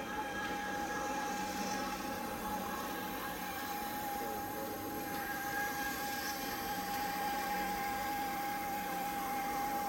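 Steady background noise of an exhibition hall, with a constant high-pitched whine that holds one pitch throughout.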